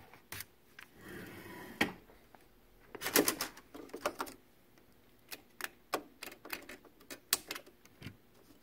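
Irregular light clicks and taps of parts and cables being handled on a workbench, with a short rustle about a second in and a quick cluster of clicks about three seconds in.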